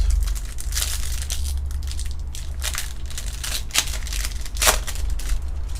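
Foil trading-card pack wrapper being torn open and crinkled in the hands: a run of irregular crackles and rustles, sharpest about a second in and again near four and five seconds in.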